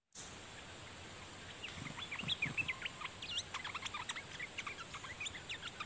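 Olive-winged bulbuls calling: a rapid run of short, quick-gliding chirps and whistles, starting about a second and a half in and continuing densely.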